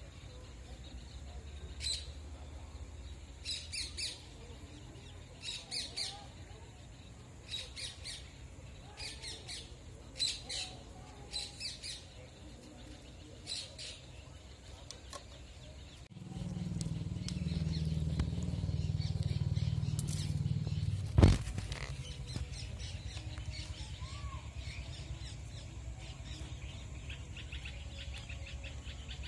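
Small birds chirping, short high calls of a few notes every second or two. About sixteen seconds in a low steady rumble comes in, with one sharp click a few seconds after it.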